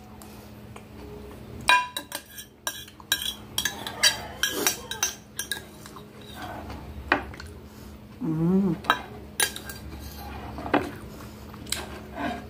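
A metal spoon clinking and scraping against a glass food container as the last of a noodle soup is scooped out, in scattered sharp taps. A short hummed vocal sound comes about eight and a half seconds in.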